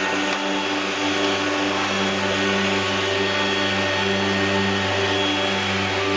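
An electric motor running steadily at constant speed: an even whirring hum over a hissing rush of air.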